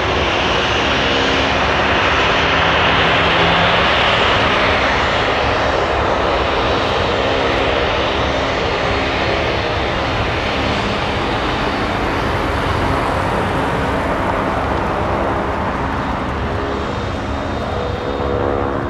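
Boeing 737-800's CFM56 turbofan engines running with a loud, steady roar and a few steady low tones. The noise peaks about three seconds in and then slowly eases off.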